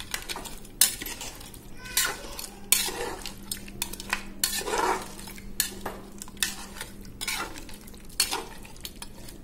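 A spoon stirring goat head pieces in tamarind gravy in a pressure cooker pot, scraping and clinking against the pot in irregular strokes with a light sizzle.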